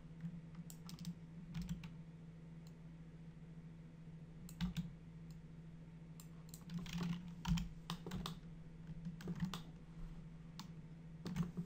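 Irregular clicks and taps of a computer keyboard and mouse, a few bunched together at times, over a steady low hum.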